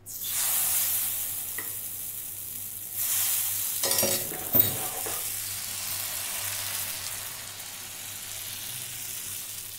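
Appam batter sizzling as it hits a hot greased pan, starting suddenly. About three seconds in the sizzle swells again, followed by a few sharp metal clinks against the pan, then a steady frying hiss.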